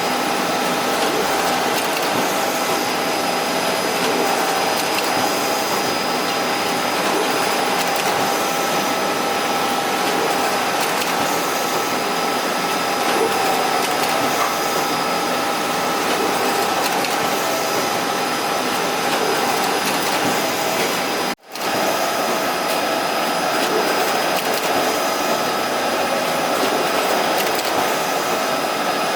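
Ricoh Pro C7500 colour production printer running: a steady machine whir of fans and paper feed, with a few faint steady tones over it. It cuts out for a split second about two-thirds of the way through.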